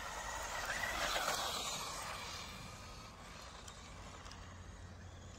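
A 1/16-scale electric RC car on road tyres driving across asphalt, its motor and tyres whirring loudest about a second in, then fading as it moves away.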